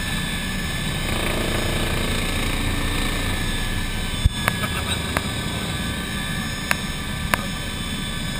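Cabin noise of an MBB Bo 105 twin-turbine helicopter in aerobatic flight: a steady drone of rotor and turbines. A few sharp clicks come a little past the middle.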